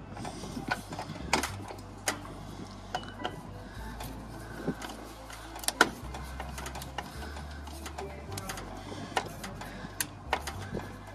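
Screwdriver tightening the terminal screws on an AC condenser's contactor, giving scattered metallic clicks and ticks at uneven intervals as the screws are cinched down. A faint steady low rumble runs underneath.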